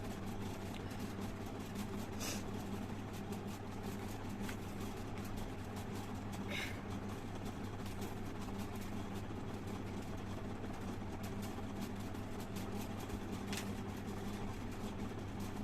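A woman spitting with a sound into a plastic glass: three short spits, about two, six and a half and thirteen and a half seconds in, over a steady low background hum.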